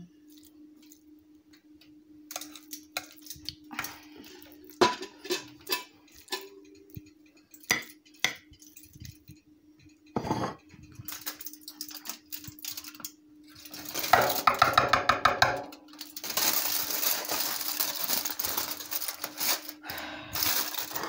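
Metal utensils clinking and scraping against a baking dish of lasagne, with a loud scraping stretch about two-thirds of the way in. Aluminium foil is then crinkled for several seconds near the end, over a steady low hum.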